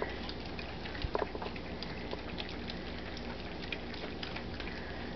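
Old English Sheepdog puppies eating soft puppy mush together from one pan: a busy run of wet smacking and lapping, with a few louder clicks about a second in.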